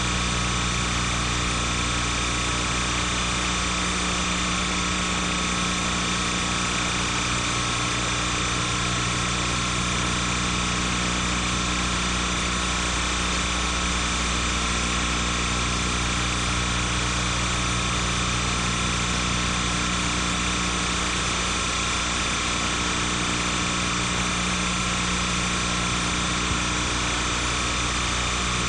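Steady, unchanging machine-like hum and hiss with several steady tones and no events: noise on the track of silent film footage, not sound from the scene shown.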